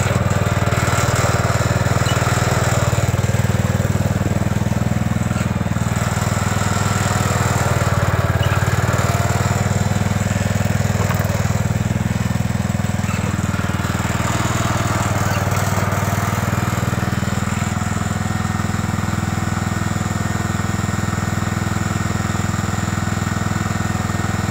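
Kohler single-cylinder engine of a 1968 Gravely Commercial 12 walk-behind tractor running steadily with a low, even note, a little quieter in the second half.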